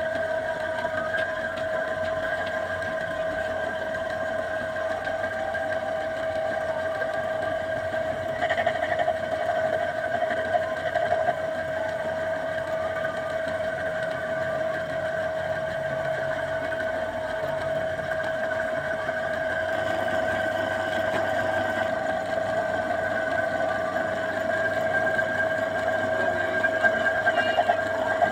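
Motor of a potter's wheel running with a steady whine as the wheel spins, its pitch not changing.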